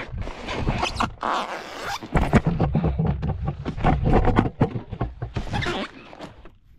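A car seat being wrenched out of an old Mustang: a rapid run of clunks, knocks and scraping of the metal seat frame against its track and the car's interior. The seat has rotted loose from its track.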